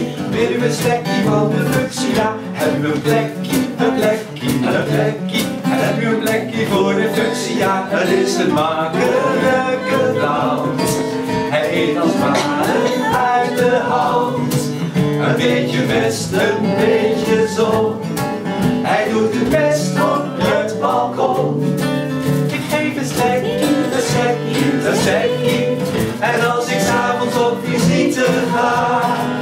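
Live cabaret song: a singer accompanied by strummed acoustic guitar and a cajon keeping the beat.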